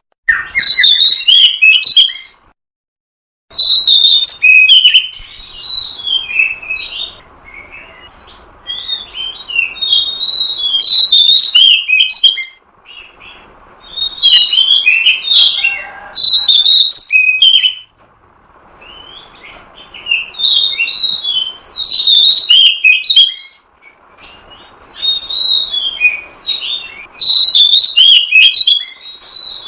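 Oriental magpie-robin (kacer) song: phrases of loud, quick, varied whistles and chirps a few seconds long, separated by short pauses, over a steady background hiss. It is used as a luring call to draw wild magpie-robins. The sound drops to dead silence for about a second roughly two and a half seconds in.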